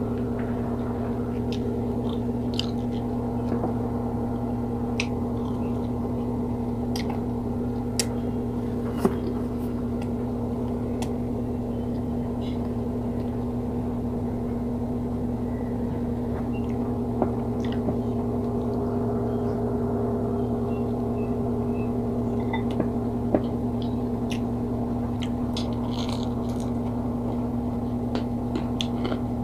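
Close-up eating sounds: small clicks and smacks of someone chewing and biting pieces of fried pork, scattered over a steady low hum that is the loudest sound throughout.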